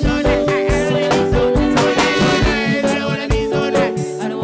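Live reggae band playing, with a steady drum beat and held instrument notes.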